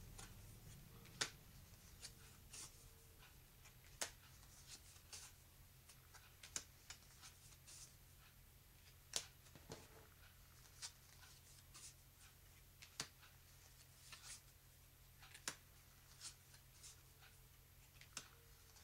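Glossy, thin playing cards being slid off a stack and laid down one at a time on a wooden tabletop. The result is quiet, irregular taps and short slides, with a few sharper clicks.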